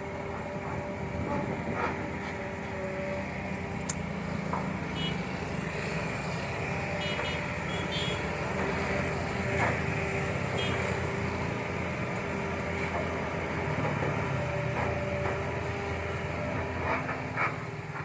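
Hitachi excavator's diesel engine running steadily under work, with occasional knocks. A few short high beeps sound about five to eight seconds in.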